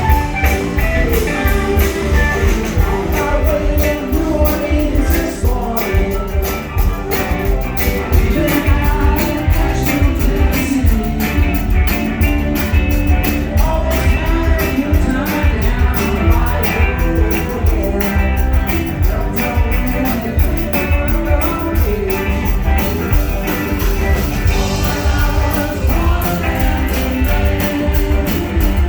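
Live rock band playing a country-rock song: electric guitars, bass and a drum kit keeping a steady beat, with singing.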